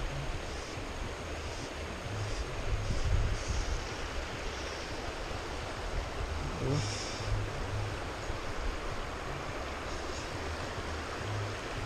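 Spillway water rushing steadily, with wind buffeting the microphone and a short swish a little past halfway.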